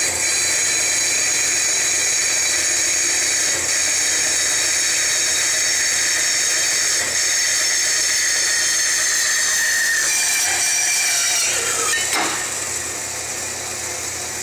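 Hydraulic band saw cutting through steel angle, the blade ringing with a steady high-pitched whine. About ten seconds in the sound changes, a sharp clunk comes about two seconds later as the blade breaks through and the offcut drops, and the saw then runs on quieter.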